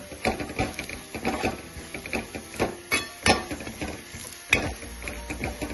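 A metal spatula scraping and knocking against a metal kadhai, stirring masala spices into frying onions and oil: irregular strokes, two or three a second, the loudest a little after three seconds in and again past four seconds.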